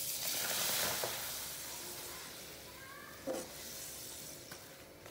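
A pappadam sizzling in hot oil in a small kadai, the hiss loudest at first and dying down over a couple of seconds as it puffs. A short knock comes about three seconds in.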